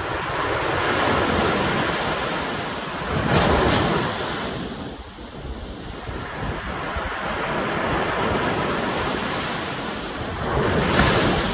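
Sea waves breaking and washing on the shore, in two big surges, one about three and a half seconds in and one near the end, with wind rumbling on the microphone.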